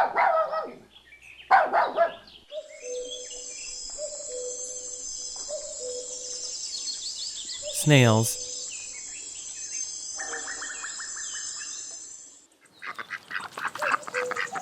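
A puppy yapping for the first two seconds, then a stretch of quieter outdoor background with bird chirps and calls (snails themselves make no sound), and ducks starting to quack about thirteen seconds in.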